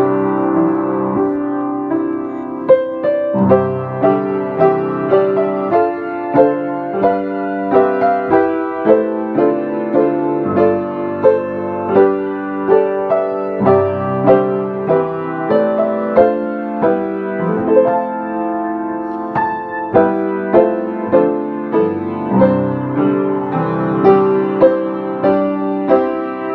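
Grand piano played solo: a melody struck at an even pace, roughly one note a little under every second, over sustained chords.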